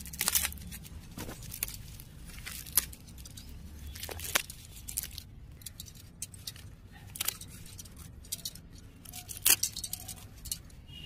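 Hands stripping leaves and twigs off a potted mogra (Arabian jasmine) plant: rustling with sharp, irregular snaps as stems are plucked and broken.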